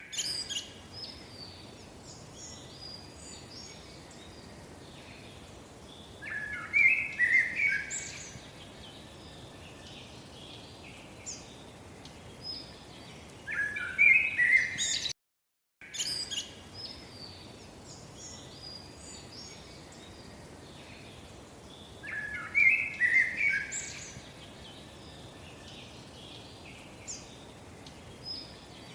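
Birds chirping and calling over a faint steady hiss, with two bursts of louder, busier calls. The sound cuts out briefly about halfway and then the same birdsong recording repeats.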